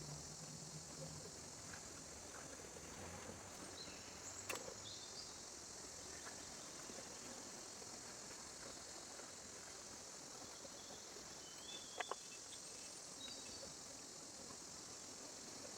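Faint outdoor ambience with a steady high insect drone, broken by a sharp click about four seconds in and a quick double click near the end.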